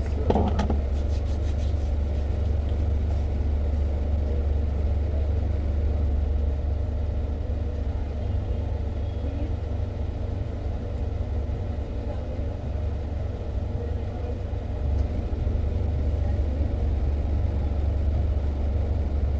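Car engine idling, heard from inside the cabin as a steady low rumble, with a few brief clicks in the first couple of seconds.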